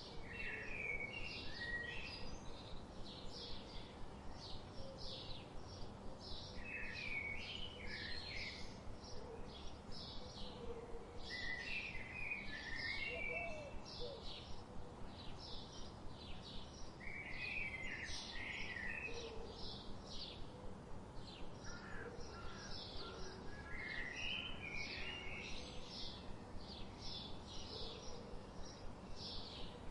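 Small birds chirping and singing: a rapid, steady series of high chirps, about three a second, with a short lower warbling phrase every five or six seconds.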